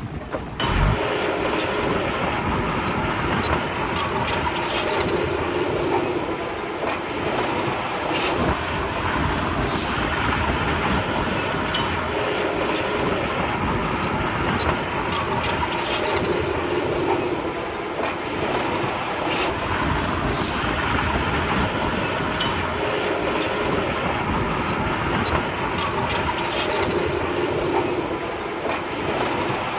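Komatsu D31P crawler bulldozer's diesel engine working, its tone swelling every few seconds as it pushes, with frequent metallic clanks and clatter of its tracks.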